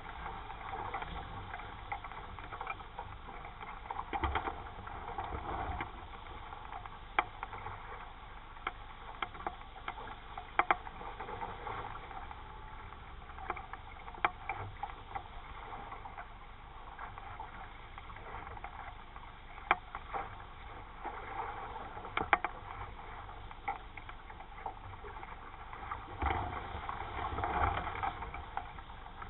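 Wind and water noise aboard a 420 sailing dinghy under way: a steady rush with scattered sharp knocks and two louder swells, one near the start and one near the end.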